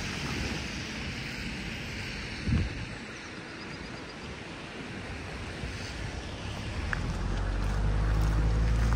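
Outdoor ambience with wind on the microphone and a single thump about two and a half seconds in; near the end a vehicle's engine rumble swells and becomes the loudest sound.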